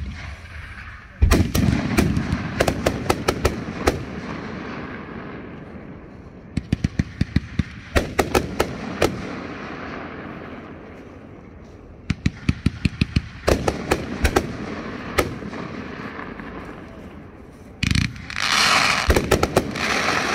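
Consumer fireworks going off in volleys: four runs of rapid sharp bangs and crackles, several seconds apart. Near the end a dense close hiss comes in with the last run.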